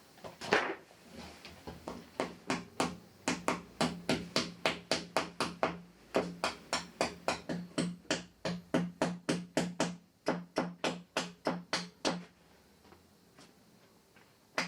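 Background music: a fast, even percussive beat of sharp clicks, about four to five a second, which drops away about two seconds before the end.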